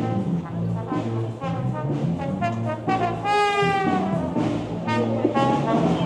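A brass band playing: a steady, repeating bass line under higher brass parts, with one long held high note a little past three seconds in.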